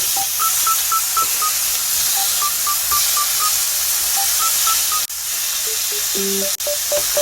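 Steady sizzling hiss of food frying in a pan, under light background music made of short beep-like notes in a simple melody. The sound cuts out briefly twice near the end.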